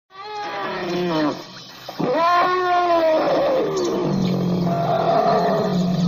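Elephant calling: a call that starts suddenly and falls in pitch, a second call about two seconds in that rises then falls, then a lower, steadier call from about four seconds.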